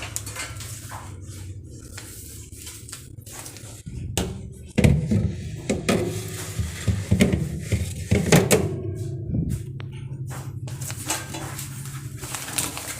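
Plastic refrigerator shelves and parts being handled and slotted back into place: a run of knocks and clatters, loudest about four to nine seconds in, with lighter clicks around them.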